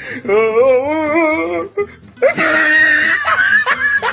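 A voice holding one wavering, quavering note for about a second and a half, then after a short gap a loud, shrill scream.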